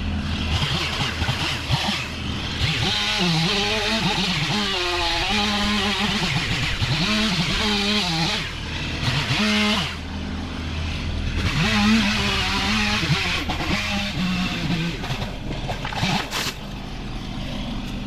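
Chainsaw revving up and down repeatedly as it cuts through trees, over a steady low engine hum.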